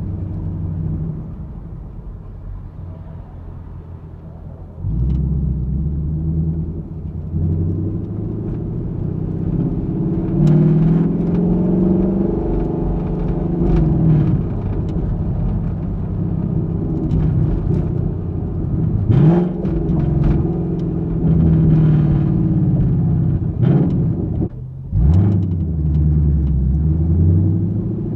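Ford Mustang GT's 5.0-litre V8 exhaust, heard from the trunk. It runs quietly for the first few seconds, then comes in louder about five seconds in. Its pitch then rises and falls several times as the car accelerates and changes gear.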